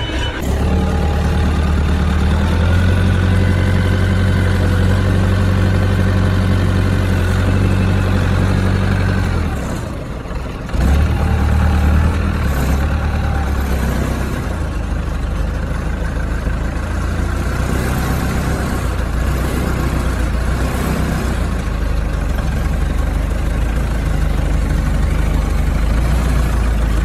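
Forklift engine running steadily with a deep drone while it holds a load. About ten seconds in the sound dips briefly, then comes back abruptly.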